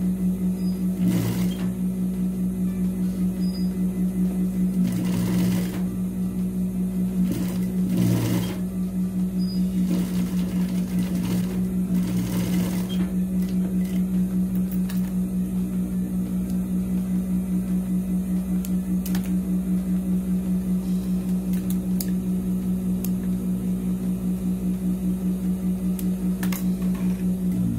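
Zoje industrial lockstitch sewing machine running steadily while topstitching a strap. It gives a steady hum with a fast, even stitching rhythm and stops right at the end.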